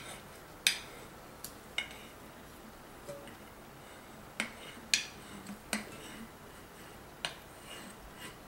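Wooden spoon knocking and scraping against the inside of a glass jar as wet apple peels are scooped out: a series of sharp, irregularly spaced clinks.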